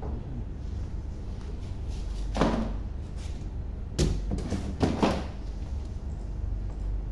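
Flaps of a large cardboard carton being pulled open and folded back. A rustling swish comes about two and a half seconds in, then a sharp knock about four seconds in and two quick cardboard rubs just after, over a steady low hum.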